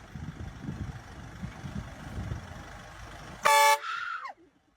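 Low rumbling, then about three and a half seconds in a single short, loud horn toot with a steady pitch, followed by a brief high sound falling in pitch.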